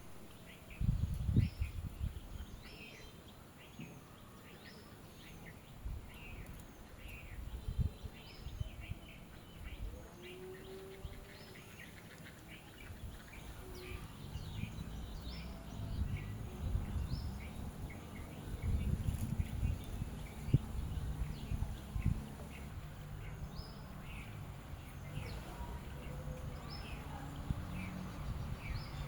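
Small birds chirping, short high calls repeating a few times a second throughout, over bursts of low rumbling noise.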